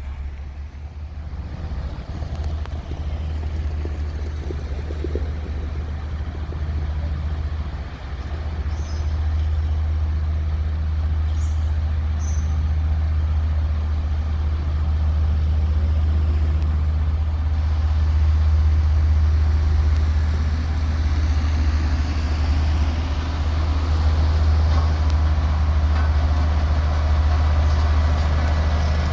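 Diesel engine of a heavy road-construction machine, a roller or road grader, running steadily with a deep drone. It grows a little louder about eight seconds in and again past the middle.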